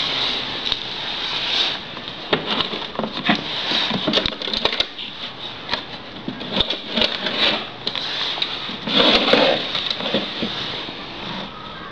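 Bird-seed husk-separating machine running: a steady hiss with irregular clicks and rattles of seed, loudest about nine seconds in.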